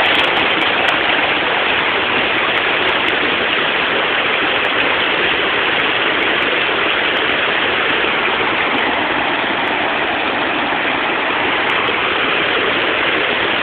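Steady, even rushing noise with no breaks or distinct sounds in it.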